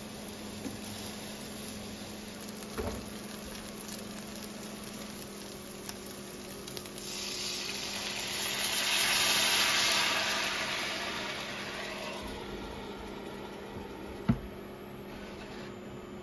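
Hamburg steaks sizzling in a frying pan. About seven seconds in, water poured into the hot pan sets off a loud hiss of spitting and steam that peaks and slowly dies away. A sharp knock near the end is the lid going on the pan to steam-cook the patties.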